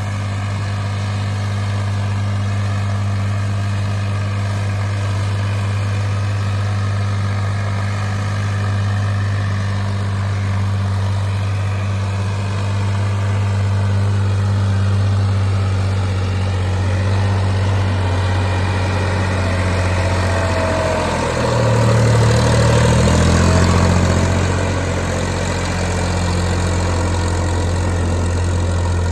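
Massey Ferguson 7250's three-cylinder diesel engine running steadily under load while it pulls a 14-disc harrow. About two-thirds of the way through it grows louder and its pitch shifts as the tractor comes close.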